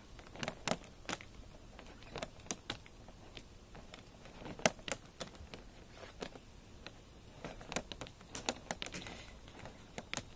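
Hands handling bundled solar panel cables and their plastic inline connectors while zip-tying them together: irregular small clicks and taps of plastic on plastic and cable on the roof, the sharpest about halfway through.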